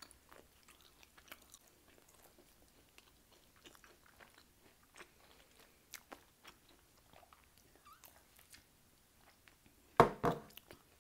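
Close-up chewing and biting of homemade pizza, with many small soft crunches and mouth clicks. A sudden loud knock comes near the end.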